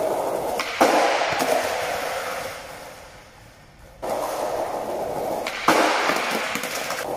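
Skateboard wheels rolling over paving tiles, with a knock about a second in, the rolling dying away, then starting again. About five and a half seconds in, a sharp clack as the board is popped onto a low stack of wooden boards for a noseblunt slide.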